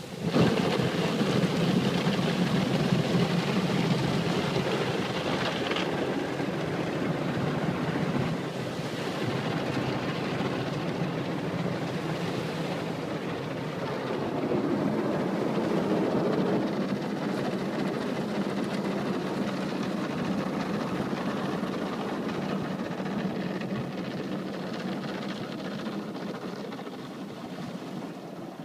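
Automatic car-wash machine running: a loud, steady rush of noise that starts suddenly, changes tone a few times along the way and eases off near the end.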